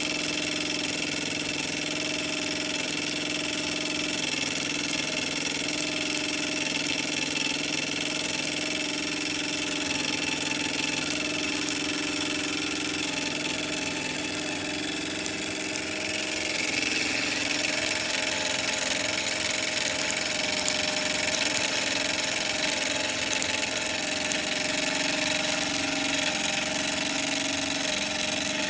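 Microcosm M89 miniature steam engine running steadily on its boiler: a continuous mechanical whir with an even hiss of escaping steam, getting a little louder past the middle.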